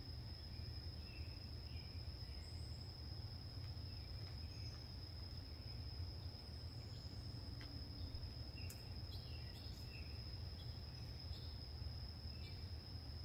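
Steady high-pitched insect trill of summer crickets, with short bird chirps scattered through it and a low steady rumble underneath.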